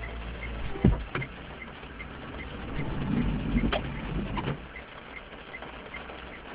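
Scattered raindrops pattering on a car's windscreen and body, heard from inside the car, with a sharp knock about a second in and a few smaller knocks later. A low rumble swells in the middle, and a faint regular tick comes about two and a half times a second.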